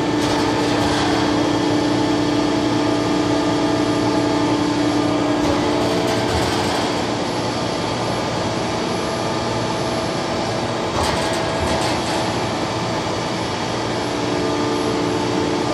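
Okuma MCR-B II double-column machining center running steadily with several steady hum tones as its slides travel into position for an attachment (head) change, with a brief clunk about eleven seconds in.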